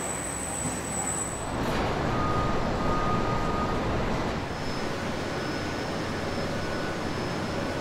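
Steady factory production-line din of machinery running, with a faint high whine for a second or two near the middle.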